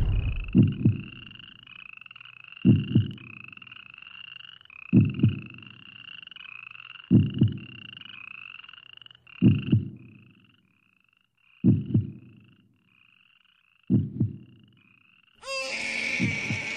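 Frogs croaking in a steady run of short rising chirps, growing fainter about halfway, under a deep double thud repeated about every two seconds. Near the end a loud cry breaks in.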